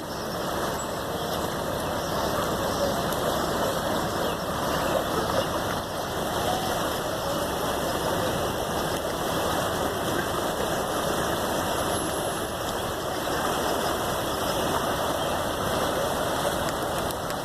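Swollen floodwater in a canal rushing steadily, an even, unbroken noise.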